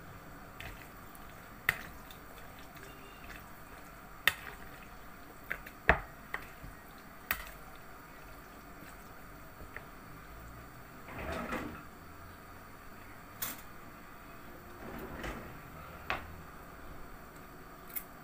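Kitchen utensils, a slotted skimmer and a metal spoon, clicking and knocking against a bowl and pot in a dozen or so separate sharp clicks, with two short stretches of stirring or scraping about midway and a few seconds later.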